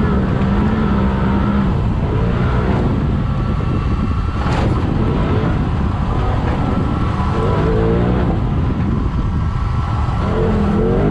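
Polaris RZR side-by-side's engine heard from the cab while driving on dirt, holding a steady note and then revving up and down several times as the throttle is worked.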